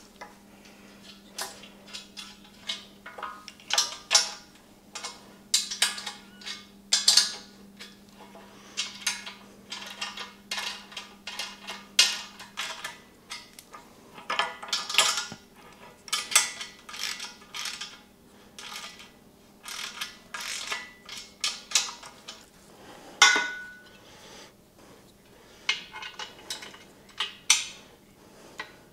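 Steel caster wheels, bolts and nuts clinking and clanking against the shop crane's steel frame as they are handled and fitted, in many short scattered clicks, with one louder ringing clank about three-quarters of the way through.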